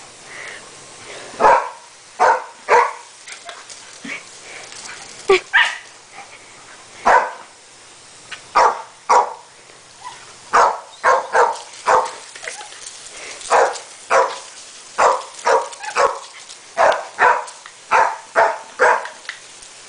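A Welsh Terrier barking over and over in short, sharp barks, playing at the spray of a garden hose. The barks come singly at first and then in quick runs of two to four from about halfway through.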